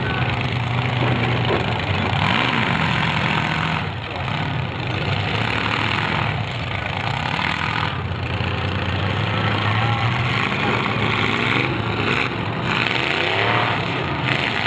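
Demolition derby car engines running and revving in repeated surges, each rev lasting a second or two.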